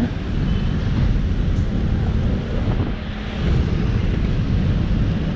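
Wind buffeting the microphone during a bicycle ride, a steady low rumble mixed with road traffic noise.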